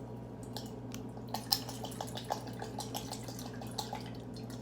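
Soy sauce pouring from a bottle into a bowl in a quick run of drips and glugs, several a second, over a steady low hum.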